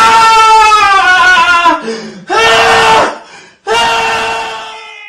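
A loud, high voice crying out in three long held notes. The first is the longest and sags slightly in pitch, the second is short, and the third fades away.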